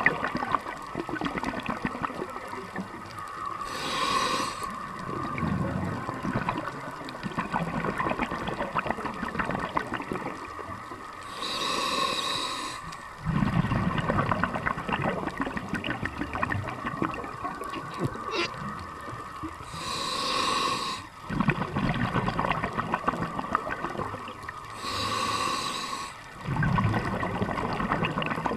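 Scuba diver breathing through a regulator underwater: four breaths several seconds apart, each a short hissing inhale followed by a longer low bubbling rumble of exhaled air.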